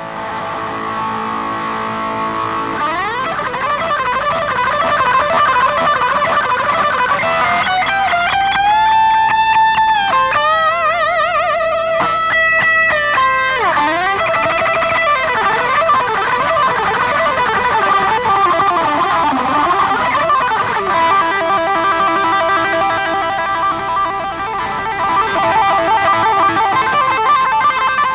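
Electric guitar solo on a V-shaped guitar, played through a concert PA. Long held notes shake with wide vibrato, then come fast tapped runs and swooping slides up and down in pitch.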